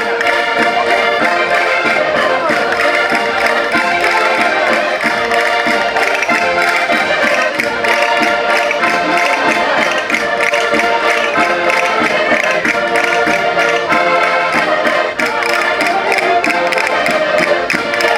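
Several concertinas (diatonic button accordions) playing a lively chula, many reed tones sounding together over a quick, steady beat.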